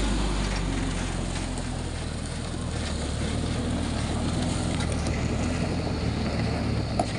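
Diesel engine of an Isuzu dump truck running steadily at low revs as the truck crawls along.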